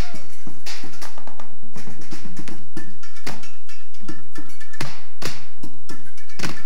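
Improvised junk-percussion ensemble playing a fast rhythm: wooden drumsticks beating metal cans and plastic barrels, with loud cymbal crashes among the strikes.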